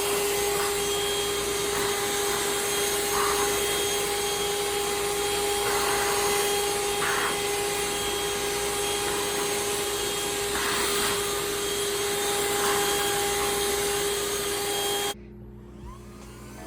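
Shark UltraCyclone Pro cordless handheld vacuum running with a steady motor whine and rushing air, with a few brief louder swishes. It stops abruptly near the end.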